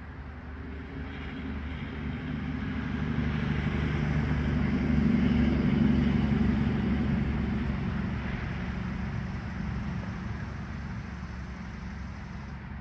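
A motor vehicle driving past: engine hum and road noise build up to a peak about halfway through, then fade away.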